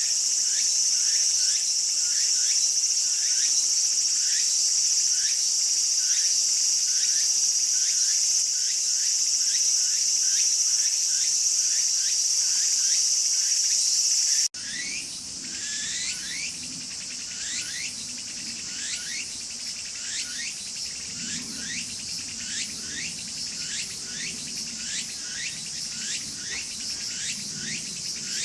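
Tsukutsukuboshi cicada (Meimuna opalifera) calling its repeated phrases, about two a second, over a steady high buzz. About halfway through, the level drops suddenly and the buzz mostly falls away, leaving the phrases clearer.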